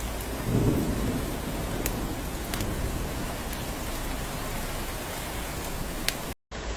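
Steady rain falling on a cabin roof, with a low rumble of thunder about half a second in and a few sharp drip ticks. The sound cuts out for a split second near the end.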